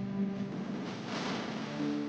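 Background music: sustained instrumental chords, with a brief swell about a second in.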